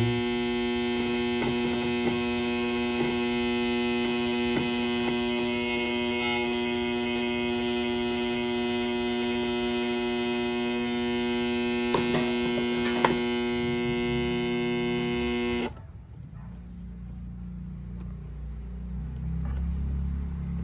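Old alarm control panel humming steadily on mains power, an electrical hum rich in overtones that the technician takes as a sign the unit is defective. Two short clicks come around 12 to 13 seconds in, and about 16 seconds in the hum cuts off suddenly as the panel's power supply is disconnected, leaving only a low rumble.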